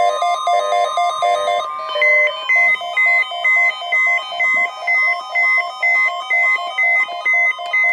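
Electronic alert tones on a weather radio test broadcast. A quick melodic run of synthesized beeps settles, about two seconds in, into a pulsing beep about twice a second over a steady high tone.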